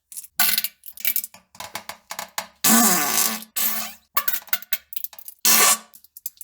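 A rapid string of fart sounds: many short bursts broken by brief gaps, with two longer ones near the middle and about two-thirds of the way through.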